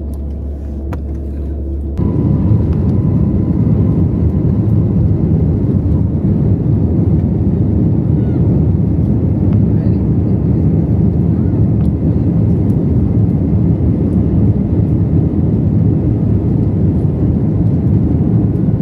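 Jet airliner cabin noise: a steady, loud rumble of engines and rushing air. It jumps up abruptly about two seconds in and then holds even.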